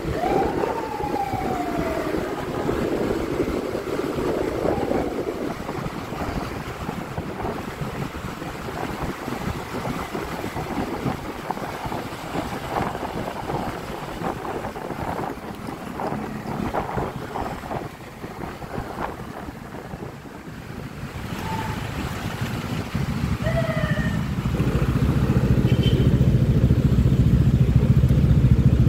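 Wind buffeting the microphone while riding a Honda Click 125i scooter, with the engine note growing louder and steadier over the last few seconds.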